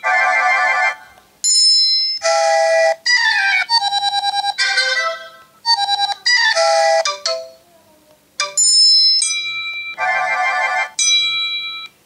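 iPhone 7 alert tones from the Classic set previewed one after another through the phone's speaker: a string of short, differing electronic chimes and jingles, several cut off abruptly as the next tone is tapped.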